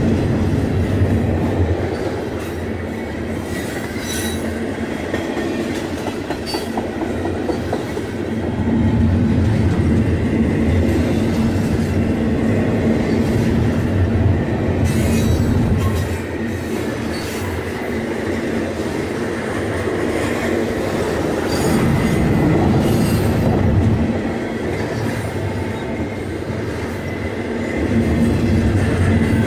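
Double-stack intermodal container cars of a freight train rolling past at close range: a steady rumble of steel wheels on rail that swells and eases as each car goes by, with occasional sharp clanks.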